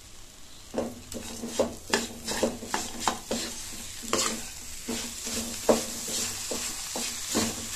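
Flat spatula stirring and scraping a thick banana, semolina and jaggery mixture around a nonstick pan in quick repeated strokes, starting about a second in, over a light sizzle of the mixture cooking on the heat.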